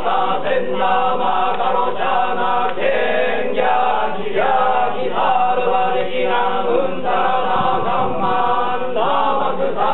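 Shugendō yamabushi chanting Buddhist liturgy together in long, held, pitched phrases with short breaks for breath, the chanting of a saitō goma fire rite.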